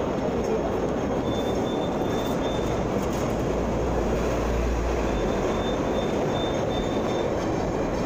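Steady running noise inside a moving vehicle, heard from its upper deck, with a faint high squeal coming and going and a low rumble swelling about halfway through.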